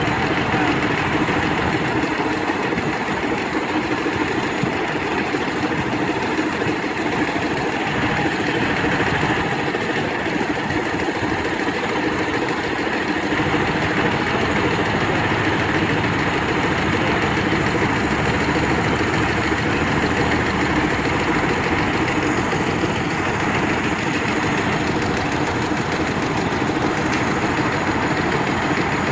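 Engine running steadily, driving a circular sawmill with its large blade spinning.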